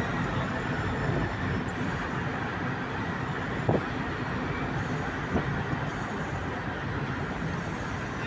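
Steady engine and road rumble inside the cabin of a bus driving through a road tunnel, with a brief knock about three and a half seconds in and a smaller one a couple of seconds later.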